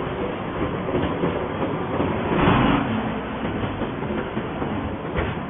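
Concrete block-making machine running, a continuous dense mechanical noise that swells louder for a moment about two and a half seconds in.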